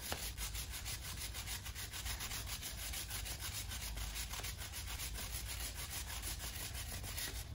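Bristle chain-cleaning brush scrubbing a motorcycle drive chain wet with chain cleaner, in quick, even strokes several times a second.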